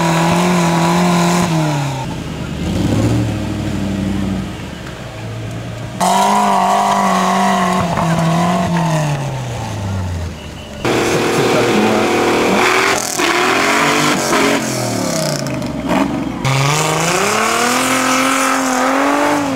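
Off-road trial 4x4 engines revving hard under load on steep climbs, the pitch holding, then dropping away or climbing, across several short clips with abrupt cuts between them.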